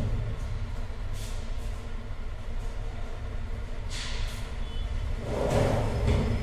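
The bottom drawer of a steel almirah slides shut, a brief scraping slide about five and a half seconds in, with a shorter noise about four seconds in, over a steady low rumble.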